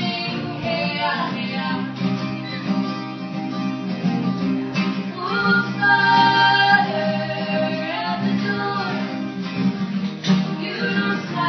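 Live acoustic guitars strumming and picking a song, with a woman singing long held notes over them.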